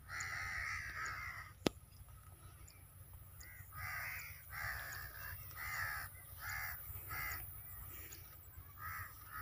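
A crow cawing over and over, a string of short harsh calls roughly half a second to a second apart, with a longer call at the start. A single sharp click about two seconds in.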